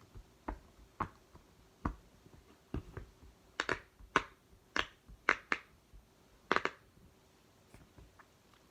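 Silicone pop-it fidget toy, a rainbow octagon poppet, having its bubbles pressed one by one: a dozen or so sharp little pops at an uneven pace, loudest and quickest in the middle and tailing off to a few faint ones near the end.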